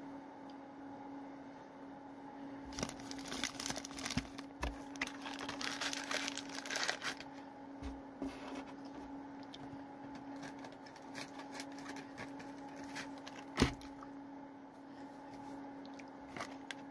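Candy packaging crinkling and rustling as it is handled: a dense run of crackles for a few seconds, then scattered clicks with one sharp click, over a steady hum.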